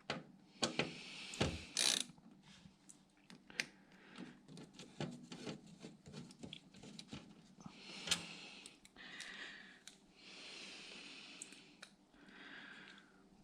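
Irregular light clicks, taps and scrapes of small metal parts and screws being handled and worked on a computer case, with a few soft hissing scrapes in between.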